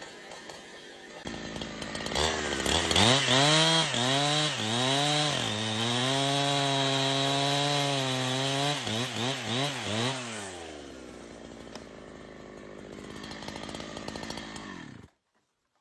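Chainsaw engine revving up and down in several quick bursts, then held at steady high revs for a few seconds, with more short revs before it drops away about ten seconds in. The audio cuts off suddenly near the end.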